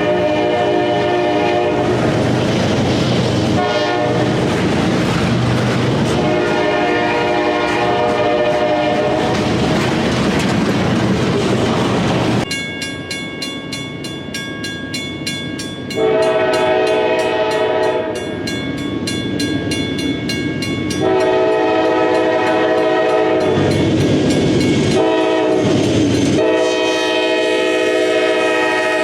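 Diesel locomotive air horns blowing a series of loud chord blasts over the rumble and clatter of a passing train. In the later sequence the horn sounds long, long, short, long, the standard signal for a train approaching a grade crossing.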